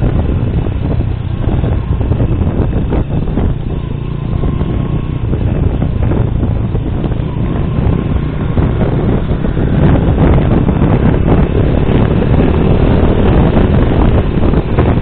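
Honda motorcycle riding along a road, its engine mixed with wind rushing over the microphone. It gets a little louder about two-thirds of the way in.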